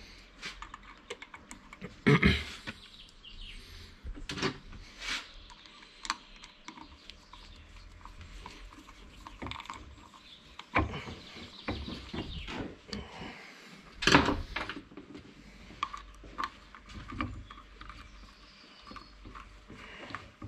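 Irregular clicks and knocks of metal parts and hand tools as a Kubota tractor starter motor is being reassembled. Louder knocks come about two, four and a half, eleven and fourteen seconds in.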